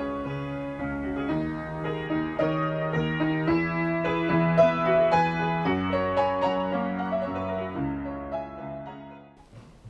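Piano music, held chords and melody notes, fading away near the end.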